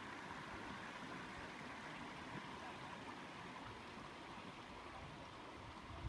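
A small rocky stream flowing steadily, a faint even rush of water.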